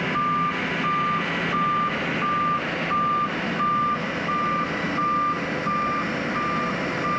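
Vehicle reversing alarm beeping at a steady pace, about three beeps every two seconds on one unchanging tone, over steady background noise.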